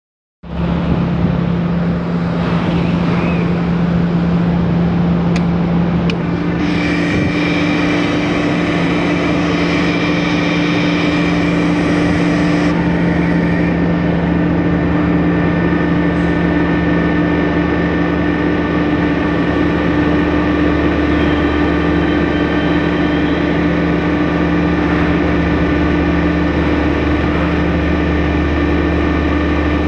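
Old gangway machine's engine running loudly and steadily with a low hum. About six seconds in a second, higher steady tone joins, and a higher whine comes and goes for several seconds.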